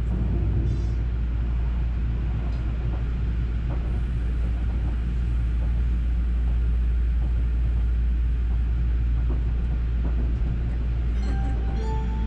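Running noise of the JR West Haruka limited express heard inside the passenger car at speed: a steady low rumble of wheels on rails.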